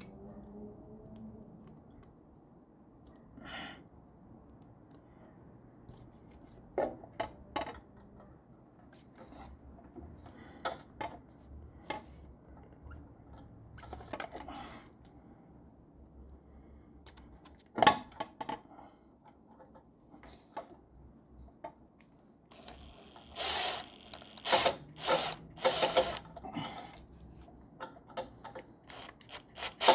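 Scattered clicks and taps of small screws and metal parts being handled. About three-quarters of the way through comes a run of short bursts from a cordless drill driving a screw through a flexible extension.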